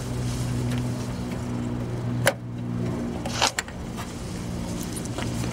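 Plastic wiring-harness connector being pressed and worked off the coolant level sensor of a Saturn Ion surge tank: a sharp click about two seconds in, then a few quicker clicks about a second later as it pops loose, over a steady low hum.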